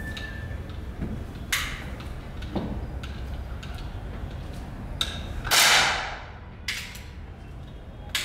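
Air pistol being loaded and handled: a few sharp mechanical clicks and knocks. A short, loud hissing burst comes a little past halfway.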